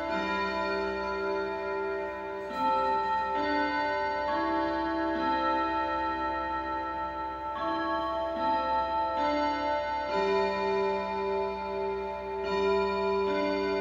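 Junghans W64 pendulum wall clock chiming a melody: struck notes about a second apart in four-note phrases with short pauses between them, each note left ringing into the next, over the steady tick of the movement.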